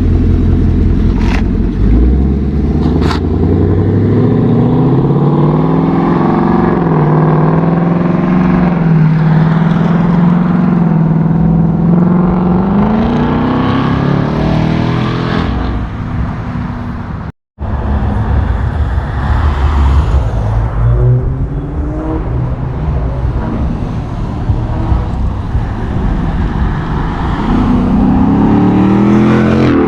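2018+ Ford Mustang GT's 5.0 L V8 exhaust, with an H-pipe and stock active-exhaust mufflers, accelerating: the exhaust note rises in pitch, holds steady for a few seconds, then rises again. About halfway through, a cut leads into a second run of the same exhaust, which climbs in pitch again near the end.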